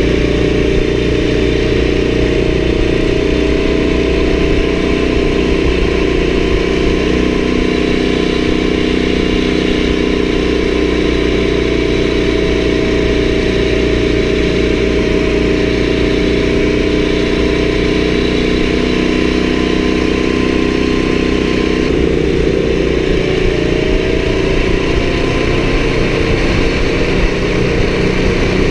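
Small single-cylinder ATV engine running steadily at cruising throttle, heard from the rider's seat, its note shifting briefly about three-quarters of the way through.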